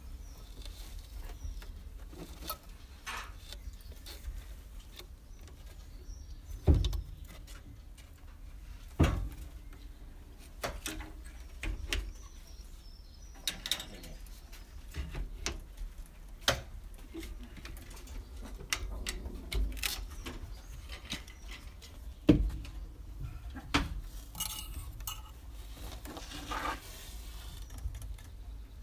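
Handling noise as young rabbits are stroked and picked up in a hay-bedded hutch: scattered clicks, taps and rustles, with a few sharper knocks, over a low steady rumble.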